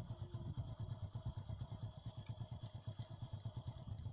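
An engine running steadily with a rapid, low throb.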